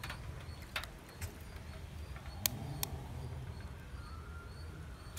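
A knife blade tapping and cracking eggshells: a handful of sharp clicks, the loudest about two and a half seconds in.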